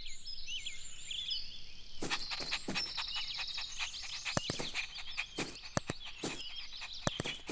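Birds chirping in a garden ambience, with a run of short, sharp taps starting about two seconds in.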